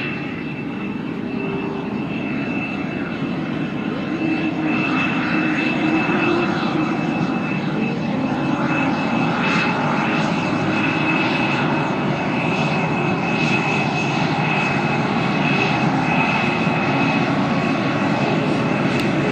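Saab JAS 39C Gripen's single Volvo RM12 turbofan running at low power as the fighter taxis: a steady high whine over a continuous rushing noise, growing somewhat louder about four seconds in.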